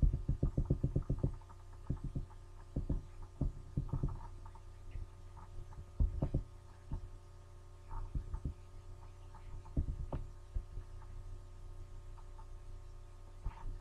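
Computer mouse scroll wheel clicking in quick runs, fastest in the first second and a half and then in short spurts, over a steady low electrical hum.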